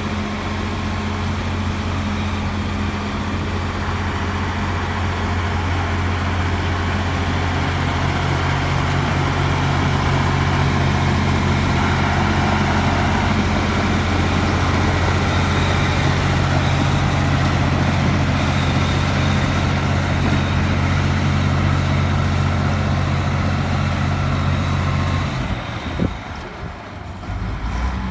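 Komatsu bulldozer's diesel engine running steadily while working. Near the end the engine note drops away briefly, with a single sharp knock, then picks up again.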